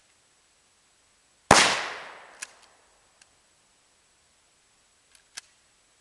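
A single 12-gauge shotgun shot about a second and a half in, with a tail of echo that dies away over about a second, followed by a few faint sharp clicks.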